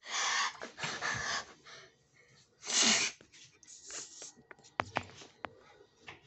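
Phone handling noise: several short bursts of rustling, the loudest about three seconds in, then a few sharp clicks as the phone is moved.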